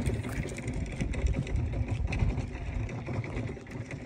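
Wind buffeting the microphone, a gusting low rumble that swells and falls irregularly.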